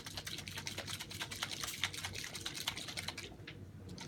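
A closed slime-kit container of water and clay being shaken hard, its contents giving a fast clicking rattle with a little sloshing; the rattling pauses briefly about three seconds in and then starts again.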